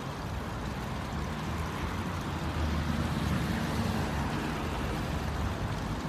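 A small stream flowing with a steady rush of water, under a low rumble that grows louder about two and a half seconds in.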